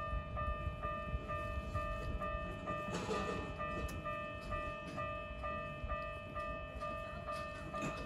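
Japanese railway level-crossing warning bell ringing, an electronic two-tone ding repeating evenly a little over twice a second. A brief rush of noise passes about three seconds in.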